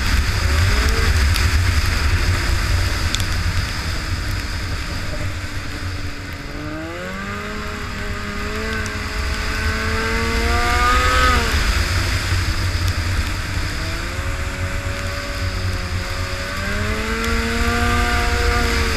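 Arctic Cat Firecat F6 snowmobile's two-stroke twin engine running under way, its note rising and falling with the throttle, with a long climb from about seven seconds in that tops out and drops away near the middle. A heavy wind rumble on the microphone runs beneath it.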